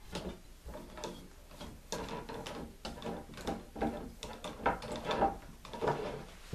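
A PVC pipe aerator assembly being handled and shifted on a wooden tabletop: light, irregular knocks, clicks and scrapes of plastic fittings against wood.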